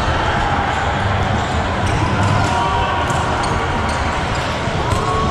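Echoing sports-hall din of volleyballs being hit and bouncing on nearby courts, many scattered knocks, with sneaker squeaks on the court floor, one clearer near the end.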